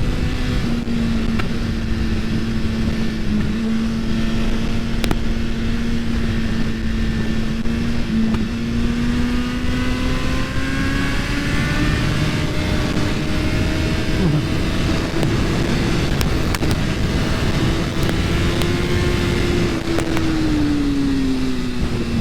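2022 Suzuki Hayabusa's inline-four engine running at speed under heavy wind noise, its note holding steady, then climbing slowly, and dropping away near the end.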